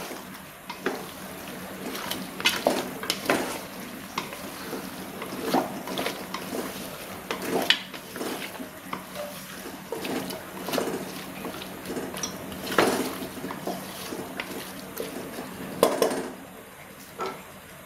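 Wooden spatula stirring chicken, potato and tomato pieces in a pressure cooker: irregular scrapes and knocks against the pot over a wet, sizzling haze as the chicken sautés.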